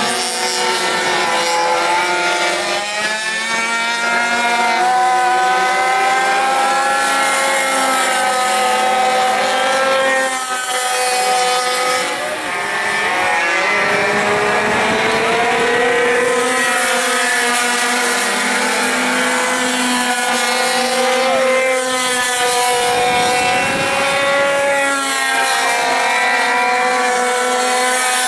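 Several pocket bike (minibike) engines racing at high revs together, each a whining tone that rises and falls in pitch as the bikes accelerate and brake through the corners.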